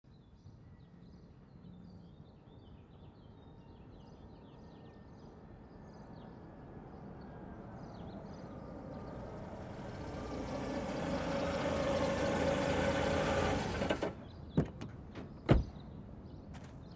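A vehicle approaching, growing steadily louder over several seconds and stopping abruptly, followed by two sharp knocks like car doors shutting, about a second apart. Faint bird chirps are heard early on under it.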